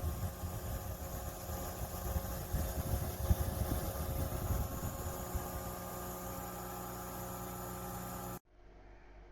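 Small desktop evaporative air-cooler fan running with a steady motor hum and airflow hiss, with low thumps and rumbles in the first few seconds. The sound stops abruptly near the end.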